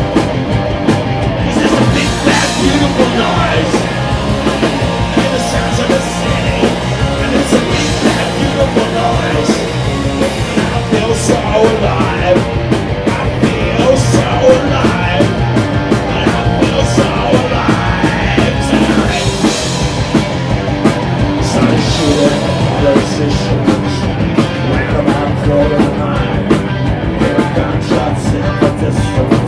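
A rock band playing a punk-rock song live at full volume, with drums and electric guitars driving a steady beat.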